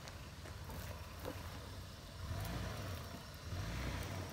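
Toyota Land Cruiser 80-series engine running low and steady as the truck crawls slowly over a rocky dirt trail, swelling slightly a couple of times.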